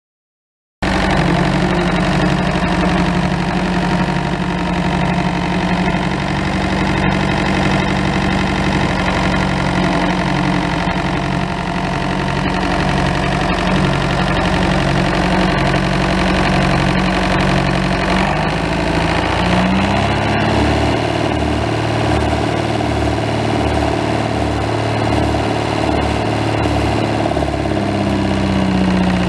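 1966 David Brown Selectamatic 990's four-cylinder diesel engine running steadily at idle. It comes in abruptly about a second in, and its speed shifts about two-thirds of the way through and again near the end.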